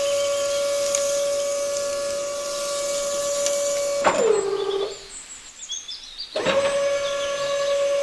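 A steady, loud whistling tone that sags in pitch and cuts off about four seconds in. After a short quieter gap with faint high chirps, it starts again and holds steady.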